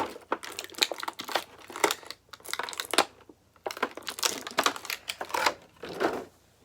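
Plastic packaging crinkling and crackling as it is handled to get the figure's spare hands out, in a few stretches with a short pause in the middle.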